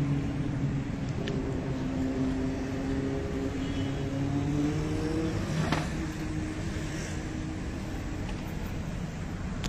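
Street traffic: car engines running and passing, one engine rising in pitch near the middle, with a single sharp click a little after halfway.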